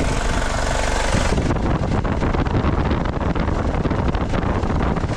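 2003 Ford Ranger's diesel engine idling steadily with an even clatter, heard up close in the open engine bay, its viscous fan and new auxiliary belts turning on the replacement crankshaft pulley. The belts are running true, with no squeal.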